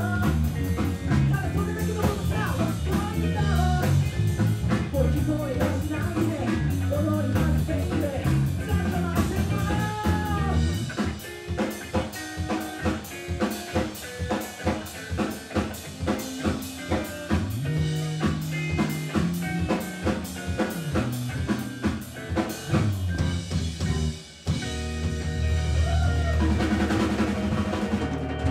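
A live funk-soul rock band playing, with drums, electric bass and guitar. From about 11 seconds in the band drops back to a drum-led break of sharp, regular hits, with a short stop near the end before the full band comes back in.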